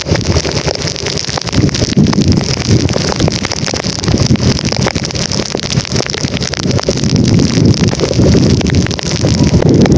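Wind buffeting the microphone of a camera on a moving vehicle in a rainstorm. The loud gusting rumble rises and falls, with rain spatter ticking on the mic and a steady hiss of wet road and rain.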